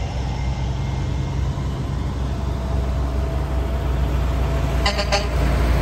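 Engines of antique trucks running as the trucks approach slowly along the road, a steady low rumble. About five seconds in there is a brief double tone.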